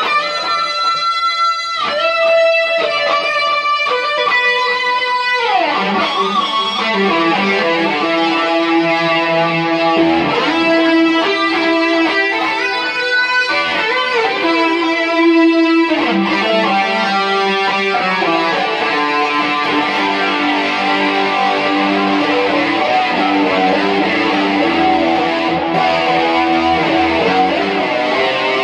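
Stratocaster-style electric guitar playing a slow lead of sustained, ringing single notes, through a Tube Screamer-type overdrive with heavy chorus and a delay of about 540 milliseconds. A note slides down in pitch about five seconds in.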